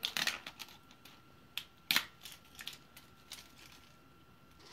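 Crinkling and tearing of the plastic wrapping being peeled off an LOL Surprise doll ball: a run of crackles at the start, a single sharp snap about two seconds in, and a few lighter clicks after.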